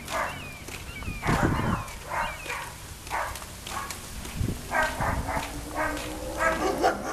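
Dogs barking and yipping in a quick, irregular series of short calls, some with high yelping tones.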